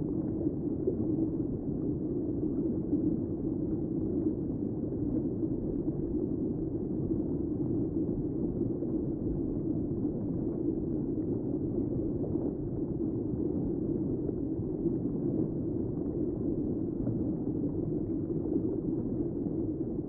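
Stream water rushing and tumbling over rocks in a shallow cascade: a steady, dull roar with no hiss or splashy highs.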